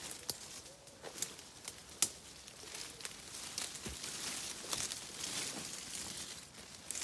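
Dry twigs and leaf litter crackling and snapping as feet and a dog push through dense woodland undergrowth. There is a sharp snap about two seconds in, and the crackling thickens about halfway through.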